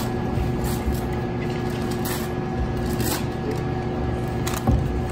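Room noise in the pause before a live band starts: a low rumble and a faint steady electric hum, with a few soft clicks and shuffles.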